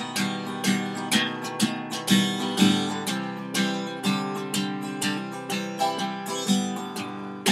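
Acoustic guitar strummed in a steady rhythm, about two strums a second, in an instrumental break of a folk-style song.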